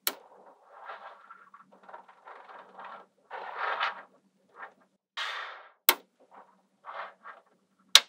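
Small metal magnetic balls rattling and clicking as a hand presses and slides a sheet of them into line, with three sharp snaps of balls clicking together: at the start, about six seconds in, and near the end.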